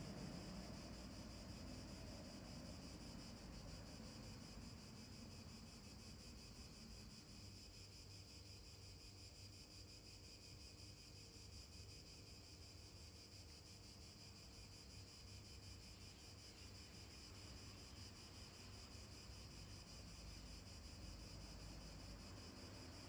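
Near silence: a faint, steady outdoor hiss with a thin high whine running through it, and no music.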